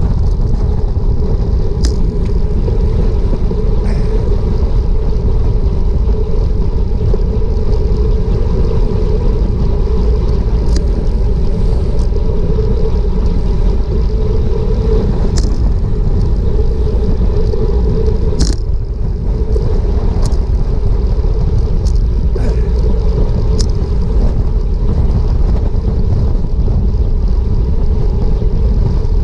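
Loud, steady wind rush and road rumble on a bike-mounted GoPro's microphone while riding a road bike at about 24 mph, with a few sharp clicks scattered through.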